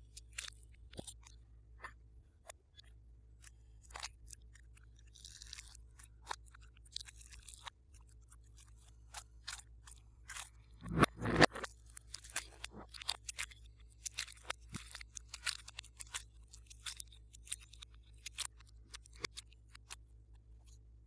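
Glossy slime being worked by hand, giving irregular sticky clicks and small air-bubble pops, with a louder crackling squish about eleven seconds in.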